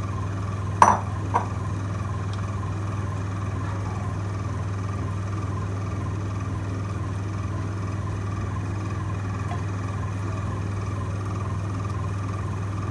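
A plastic slotted spatula knocks twice against a non-stick frying pan about a second in, over a steady low hum.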